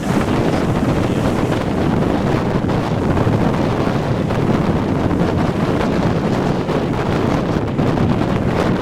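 Strong wind buffeting the microphone, a loud steady rumble that largely covers the sound of heavy storm surf breaking on the beach.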